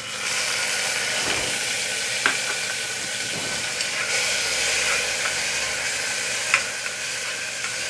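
Finely chopped tomatoes sizzling steadily in hot ghee in a pressure cooker, the sizzle starting as they go in, with a few sharp ticks as they are stirred.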